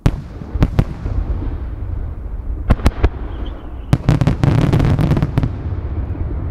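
Japanese aerial firework shells bursting overhead: a sudden loud bang, a few separate sharp booms, then a quick cluster of cracks about four to five seconds in, all over a low rolling rumble of echoes.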